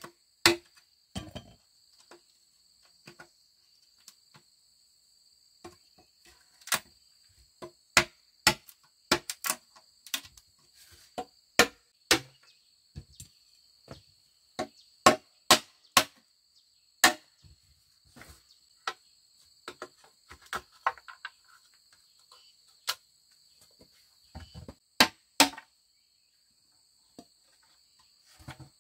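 Irregular sharp knocks of a hand tool striking bamboo, sometimes in quick pairs, with pauses of a few seconds between runs. Under them a steady high-pitched buzz of insects.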